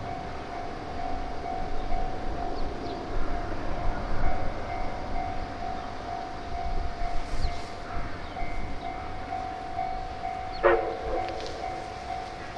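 Japanese railway level-crossing warning bell ringing steadily as one repeating tone over a low rumble. A sudden short pitched blast sounds once near the end.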